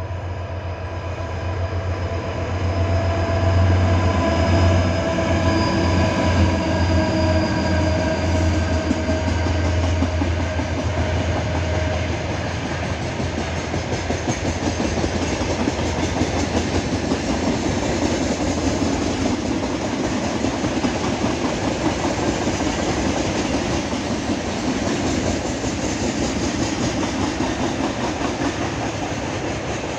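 Two ST40s diesel locomotives hauling a freight train of open coal wagons pass by: the locomotives' engines hum loudly for about the first twelve seconds, fading as they move away, and then the wagons roll past with a steady rumble and clickety-clack over the broad-gauge track and viaduct.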